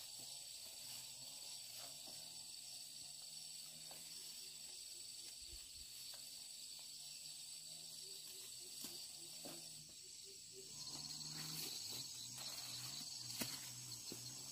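Insects trilling steadily in the background, over a low wavering hum and a few faint ticks.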